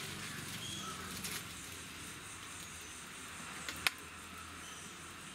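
Quiet outdoor ambience with a few short bird chirps in the first second or so, and one sharp snap about four seconds in.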